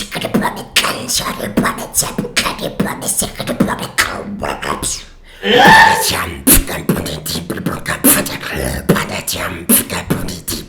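Beatboxing: a fast, irregular run of mouth clicks, pops and kick-like hits, broken by a loud pitched vocal effect about five and a half seconds in. It is an attempt to copy a beatbox sound-effect pattern, which the judge finds not deep enough and off-pattern.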